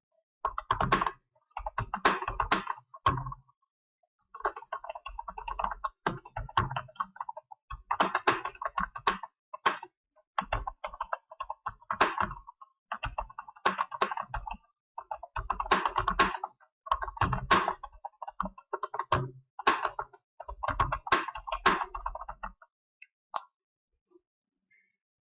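Computer keyboard being typed on fast, at about 65 words per minute, in runs of rapid key clicks a second or two long with short pauses between. The typing stops a few seconds before the end.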